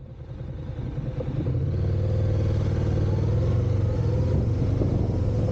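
Honda NC750X DCT's parallel-twin engine running steadily with a low rumble, rising in level over the first two seconds.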